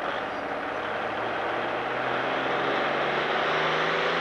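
Pro stock pulling tractor's turbocharged diesel engine running hard under load as it pulls the sled, its pitch climbing steadily and getting louder.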